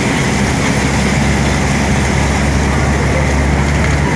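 Steady engine and road noise heard from inside a moving vehicle, with a strong low rumble under an even hiss.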